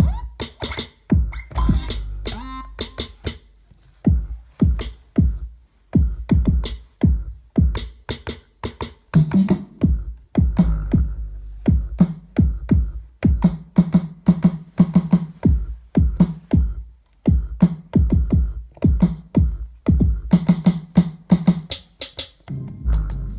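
Korg Electribe 2 groovebox playing an electronic drum-machine pattern: kick and percussion hits with high ticking hats, and a synth bass part from about nine seconds in.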